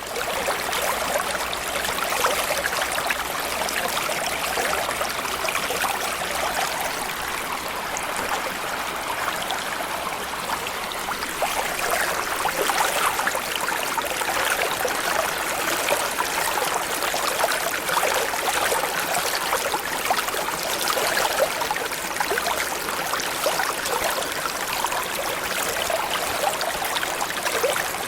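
Small stream flowing: a steady, even sound of running water.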